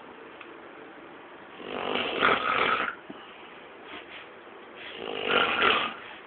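A man snoring in his sleep: two long snores, each a little over a second, about three seconds apart.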